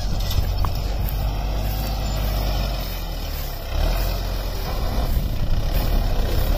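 Belarus MTZ 820 tractor's four-cylinder diesel engine running steadily under load while pulling a plough through hard soil. It dips briefly a little past halfway, then comes back up louder.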